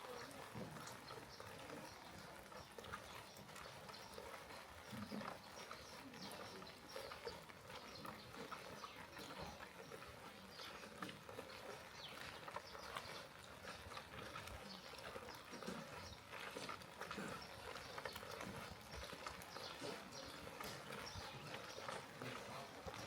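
Faint rain: many irregular drips and taps over a soft, steady hiss.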